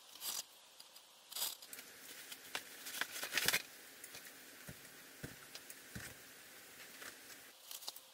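Packaging being handled: scattered scrapes, rustles and clicks as a robot arm is lifted out of its foam insert in a cardboard box, loudest about three and a half seconds in, with a plastic bag crinkling near the end.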